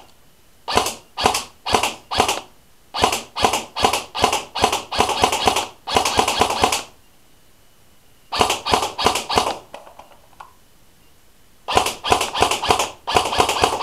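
Tokyo Marui M16A2 airsoft electric gun firing BBs. It starts with four single shots about half a second apart, then goes to quicker strings and rapid bursts with short pauses between them, firing until the magazine runs dry.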